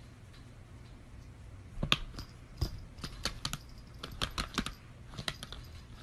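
A cat's paws tapping at a laptop's screen and keys: irregular sharp clicks, starting about two seconds in and coming several times a second.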